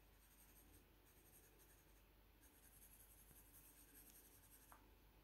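Faint scratching of a pencil shading on a spiral sketch pad: short strokes across the paper, with a brief pause about two seconds in.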